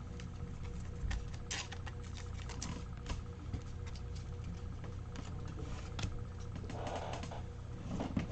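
Trading cards being handled: scattered light clicks and rustles of cards sliding against each other and against a rigid plastic top loader, over a faint steady hum.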